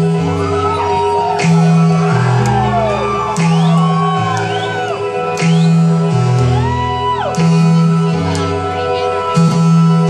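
Live electronic pop music played through a club PA: a heavy synth bass line stepping to a new note about once a second, with high notes sliding up and down over it.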